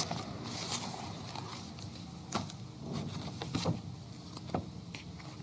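Papers being handled and shuffled close to a desk microphone: a few short rustles and taps over a faint steady hiss.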